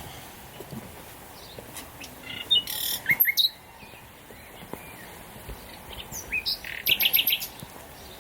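Small birds chirping in two short bouts of quick, high notes, one about three seconds in and another about seven seconds in, over a faint outdoor background.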